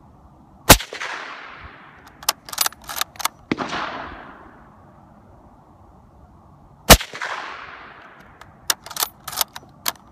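Two suppressed shots from a bolt-action Mosin-Nagant rifle in 7.62x54R, about six seconds apart, each a sharp crack with a fading tail. After each shot comes a quick run of four or five metallic clicks as the bolt is worked. A softer swell of noise follows the clicks after the first shot.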